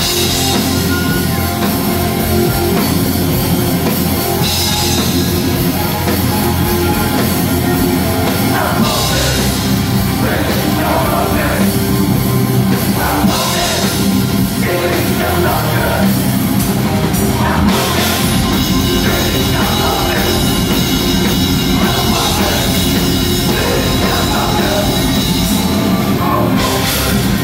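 Symphonic black metal band playing live through a concert PA, loud and steady, with a driving drum kit and heavy guitars.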